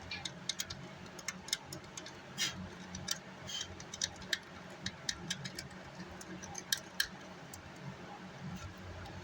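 Irregular light clicks and taps of small hand tools working on an amplifier circuit board, over a faint low hum.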